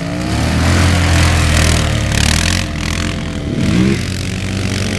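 Quad ATV engine running hard close by as the quad slides through mud, growing louder over the first second and then holding steady.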